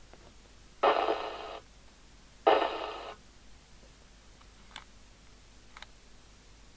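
Two short bursts of FM radio hiss from a radio's speaker, about a second and a half apart, each cutting in suddenly and fading out; two faint clicks follow later.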